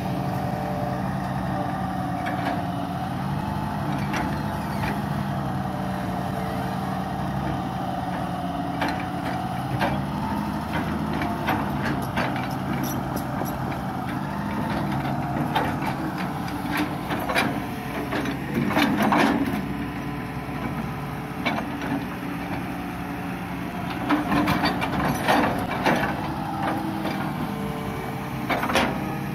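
Hitachi EX200 long-reach excavator's diesel engine running steadily as it works its hydraulics. Irregular knocks and scraping from the bucket and linkage in wet mud, heaviest about two-thirds of the way through and again near the end.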